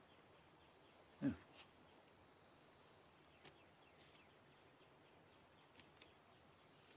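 Near silence: faint woodland ambience, with one brief vocal sound from a person about a second in.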